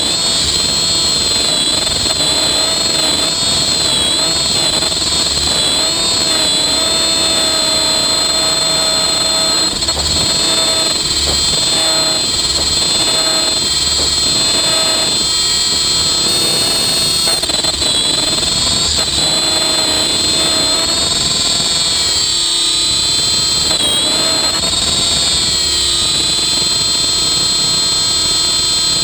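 Electric RC helicopter in flight, close up from its tail boom: a steady, loud motor and gear whine made of several high tones. The pitch wavers slightly as the rotor load changes during manoeuvres.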